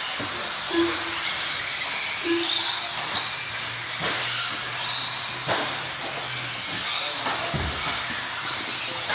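1/10-scale off-road RC cars racing on a dirt track: a steady high whine from the cars' motors over tyre and dirt noise, with scattered knocks. Two short low beeps sound about one and two seconds in.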